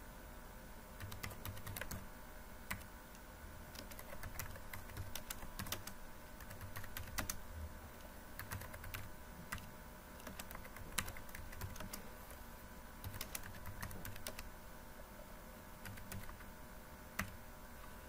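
Computer keyboard typing in irregular runs of keystrokes with short pauses between them, over a faint steady hum.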